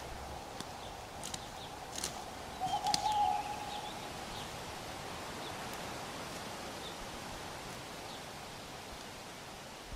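Birds calling: a few short high chirps and a louder low call about three seconds in, over a faint steady tone.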